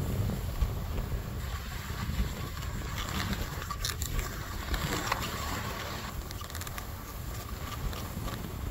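Wind rumbling on a hand-held phone's microphone while moving downhill on snow, with a hiss of sliding over packed snow that is louder in the middle.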